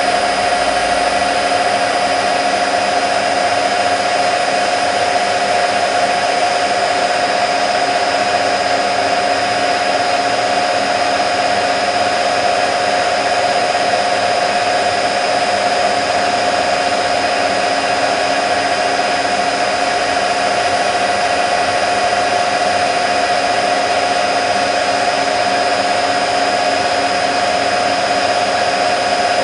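Candy Nova CN146 washing machine spinning at full speed, 1400 rpm, on the final spin of a cottons cycle: a loud, steady motor and drum whine with one constant tone, holding the same pitch throughout.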